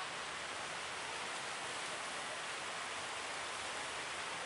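Steady rushing noise of sea surf and waves, even and unbroken.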